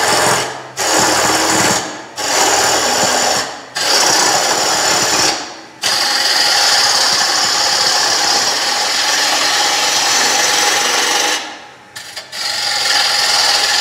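Wood lathe turning a wooden blank while a hand-held turning tool cuts it, a steady shearing hiss with no clunking. Four short cuts with brief gaps as the tool lifts off in the first six seconds, then one long cut of about six seconds, a short pause near the end, and cutting again.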